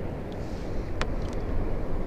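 Wind noise on the microphone over water sloshing against a kayak hull, with one sharp click about a second in.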